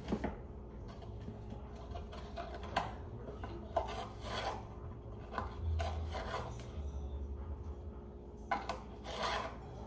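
Plastic measuring spoons scraping and clinking as baking soda is scooped from its box, levelled and tipped into a mixing bowl, in several short scrapes and taps.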